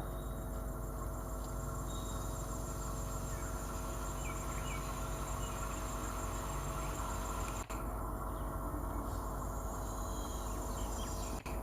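Steady ambience of rain hiss with a high, even trill and a constant low hum, cutting out for an instant twice.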